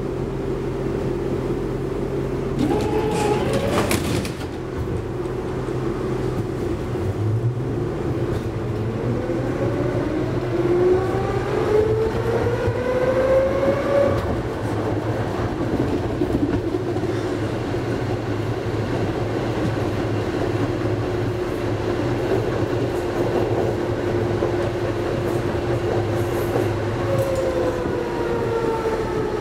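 Inside a Konstal 13N tram, a Tatra T1-type car: the doors close with a clatter about three seconds in, then the tram pulls away, its traction motors whining up in pitch as it gathers speed. It runs on with a steady hum and rolling rail noise, and the whine falls in pitch again near the end.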